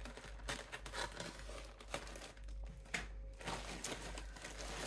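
Plastic poly mailer bag crinkling as it is handled, with irregular crackles.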